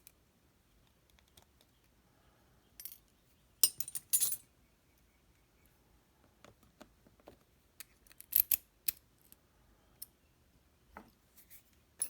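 Small metal lock parts and tools being handled on a desk: scattered light clicks and clinks, with two louder bursts of metallic rattling about four and eight seconds in.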